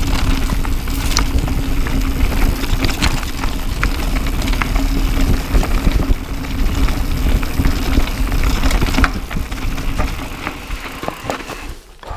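YT Capra AL 29er enduro mountain bike descending a rocky gravel trail: tyres crunching over loose stones, the bike rattling with many sharp knocks and clacks, and a rushing rumble of wind on the microphone. A steady low hum runs under it until about three-quarters through. The noise then fades as the bike slows to a stop.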